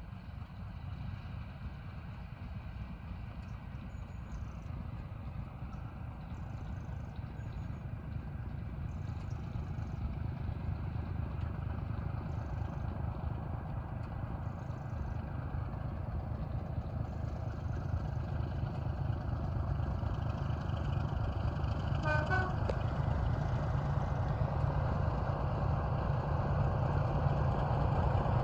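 A Class 27 diesel locomotive with its Sulzer six-cylinder engine approaches under power, a low rumble growing steadily louder. It gives a short horn toot about 22 seconds in.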